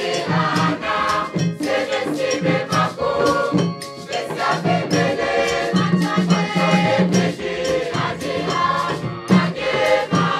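A mixed choir of young voices singing together, accompanied by hand drums that keep a steady beat.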